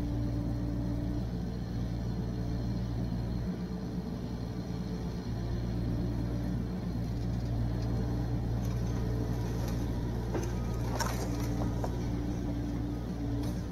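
Yanmar SV40 mini excavator's diesel engine running steadily, with a few short sharp cracks near the end.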